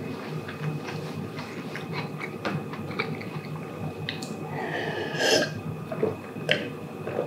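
Mouth sounds of eating and drinking: small clicks of crackers being chewed, then beer being sipped and gulped from a glass about halfway through.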